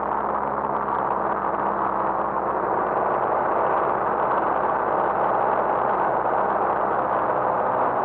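Single-engine light aircraft's piston engine and propeller running steadily in cruise flight, heard from inside the cockpit as an even drone mixed with airflow noise.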